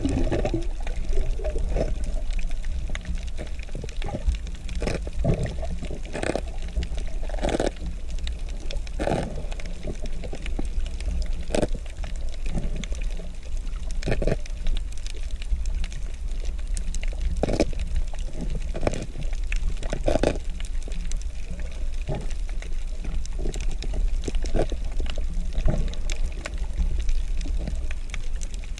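Underwater reef sound picked up by a submerged camera: a steady low rumble with irregular sharp clicks and crackles scattered through it.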